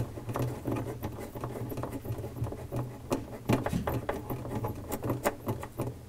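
Refrigerator light bulb being screwed by hand into its plastic socket and housing: a run of small, irregular scratching clicks as the bulb turns and fingers rub the housing. A low steady hum sits underneath.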